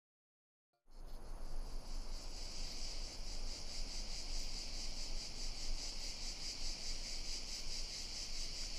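Cricket chirring: a steady, high, rapidly pulsing trill that starts about a second in, after silence.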